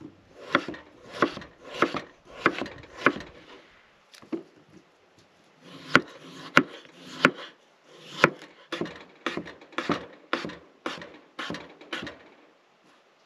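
Chef's knife slicing through a peeled raw potato and knocking down onto a wooden cutting board, cutting fries. There is a short run of cuts, a pause of about two seconds, then a longer run at about two cuts a second.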